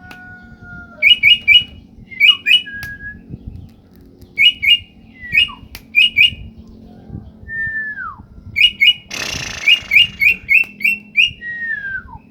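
Cucak ijo (green leafbird) calling: sharp chirps in quick clusters of two or three, with a few falling whistled notes between them. There is a brief rustling burst about nine seconds in.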